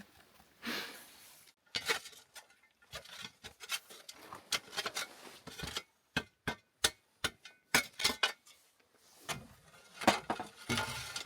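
Hand digging in rocky dirt: a metal digging tool striking and scraping stones, giving a long run of sharp, irregular clinks and knocks.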